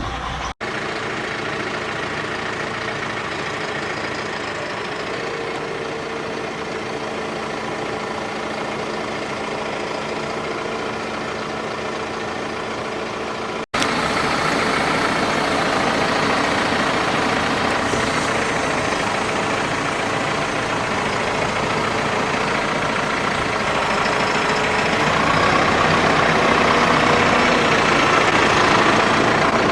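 Massey Ferguson 5S.145 tractor's diesel engine running steadily at idle. It gets louder after a sudden break about 14 seconds in and rises a little more near the end.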